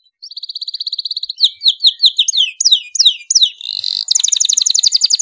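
Domestic canary singing loudly: a rapid trill, then a run of quick downward-sweeping notes, a short buzzy note, and a second fast trill.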